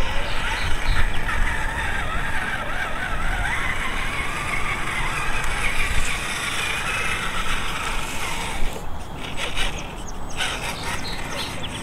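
Redcat Gen9 1/10-scale electric RC trail truck crawling over dry dirt and grass: its motor and gears whine, the pitch rising and falling with the throttle. A run of clicks and crackles comes about nine to eleven seconds in.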